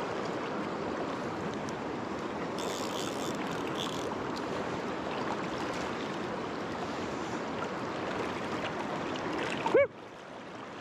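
Fast-flowing river water rushing over rocks close to the microphone, steady throughout. Near the end a brief, loud pitched sound cuts in, and the water sounds quieter after it.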